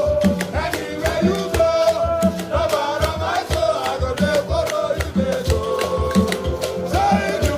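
Gospel worship music with a steady, busy percussion beat under a gliding melodic lead line.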